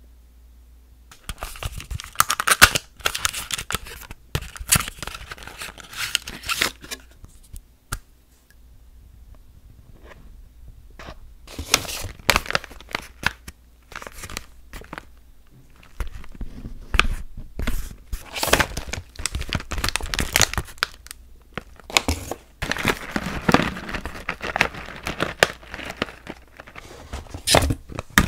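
Plastic packaging crinkling and rustling as it is handled and opened by hand: a bag of nail-drill sanding bands and plastic bit cases. The sound comes in irregular bursts, starting about a second in.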